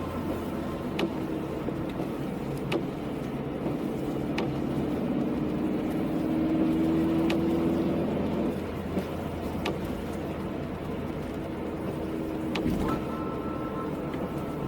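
Car being driven: steady engine and road noise with a low hum that swells about halfway through, and a short sharp tick every two seconds or so.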